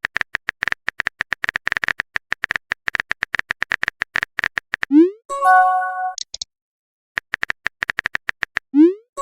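Rapid clicks of a phone keyboard typing sound effect, then a short rising swoop and a bright chime with a couple of high bleeps, as of a message sent and received. Near the end the clicks start again and close with another rising swoop.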